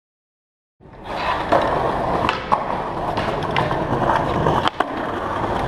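Skateboard wheels rolling on street asphalt: a steady rumble with sharp clicks and knocks now and then. It starts about a second in.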